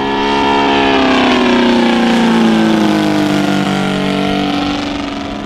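Saito FG-60R3 60cc three-cylinder gas radial engine of a large RC P-47 model flying past. The steady engine note swells to its loudest about two seconds in and drops in pitch as the plane passes.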